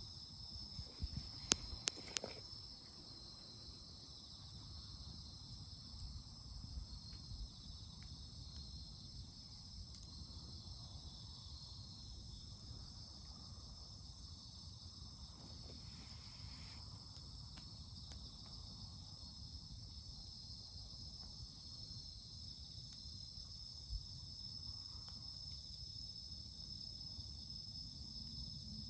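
A steady, high insect chorus chirring without a break, over a campfire that gives occasional sharp crackles and pops, with a cluster of louder pops about two seconds in.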